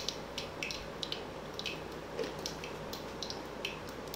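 Pancha phutana spices and dried leaves crackling and sizzling in hot ghee in the bottom of a pressure cooker: a low steady sizzle with irregular small pops, a few each second.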